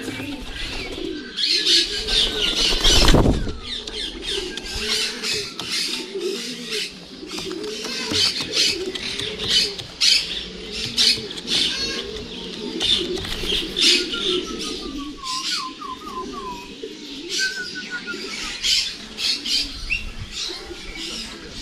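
Racing pigeons cooing continuously at the loft, with frequent wing flaps and clatters as they land and move about on the roof. A loud low thump comes about three seconds in. A few high chirps from small birds come near the middle and later.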